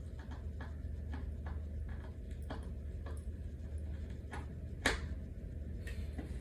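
Light, fairly regular clicks, about three a second, from hand work on a flat-pack particleboard dresser being screwed together. One louder knock comes about five seconds in, over a steady low hum.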